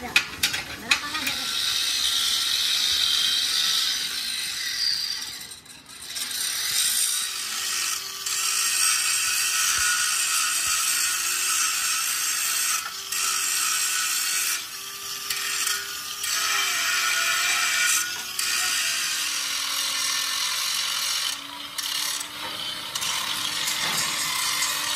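A steady, loud hiss from a metalworking tool, stopping briefly and starting again several times.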